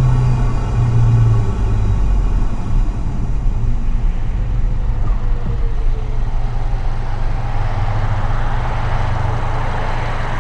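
Mk7 Volkswagen GTI's turbocharged 2.0-litre four-cylinder running steadily while driving: a low engine drone over road and tyre noise, the drone strongest in the first couple of seconds, then easing off.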